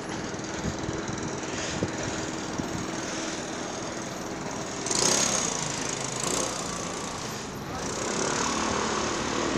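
City street traffic at a crosswalk: a vehicle engine running close by, with a louder rush of traffic noise about five seconds in.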